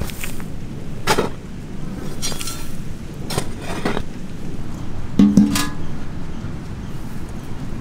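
A shovel scraping into soil and throwing it, several separate strokes, then a large metal cooking pot clanking with a short ring about five seconds in.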